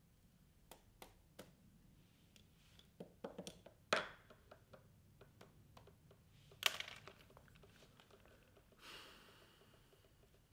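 Quiet handling of chess pieces and a pen at a chessboard: a few small clicks, then a run of taps with a sharp knock about four seconds in and another near seven seconds, as pieces are picked up and set down on the board.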